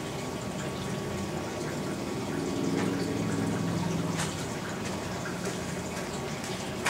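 Steady running and trickling water from a saltwater aquarium's circulation, with a low hum that swells from about two to four seconds in.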